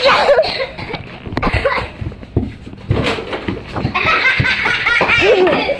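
Children laughing loudly, the laughter growing denser and higher-pitched in the last couple of seconds, with scattered thumps and knocks in the first half.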